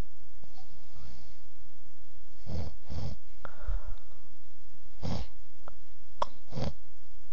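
A sleeper snoring in short, separate snores: two close together about two and a half seconds in, then single ones about five and about six and a half seconds in, with a faint click just before the last.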